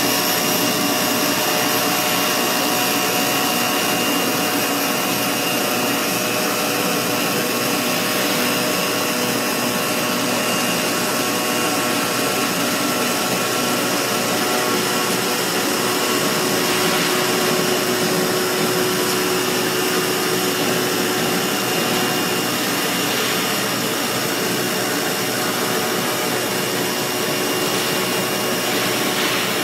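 A CNC foam-cutting machine running as its tool head cuts a sheet of white foam: a steady, even machine noise with several constant tones, holding the same level and pitch throughout.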